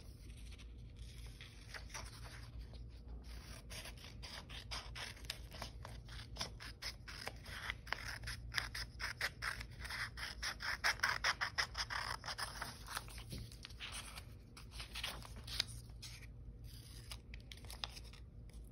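Child's scissors snipping through a paper worksheet in many quick cuts, busiest about halfway through, with the paper rustling as it is handled.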